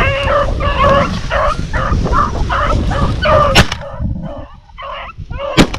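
Several rabbit-hunting dogs barking together on a rabbit's trail. A gunshot cracks about three and a half seconds in and a second about two seconds later, the loudest sounds here, and the barking thins out after the first shot.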